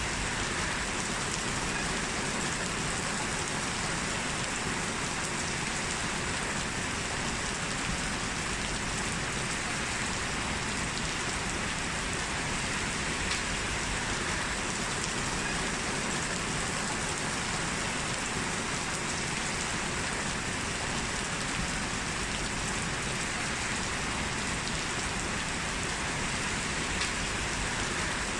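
Heavy rain falling steadily in a continuous even hiss, with the patter of drops hitting hard surfaces.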